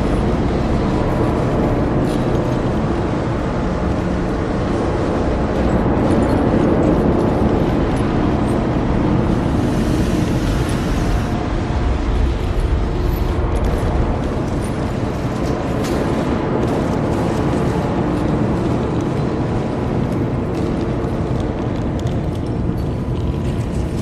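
Cave-in sound effect: a continuous heavy, low rumble of collapsing rock, easing slightly near the end.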